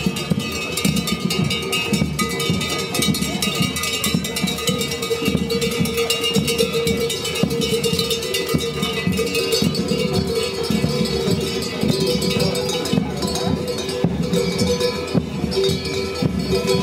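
Many cowbells clanking and ringing together in a continuous jangle.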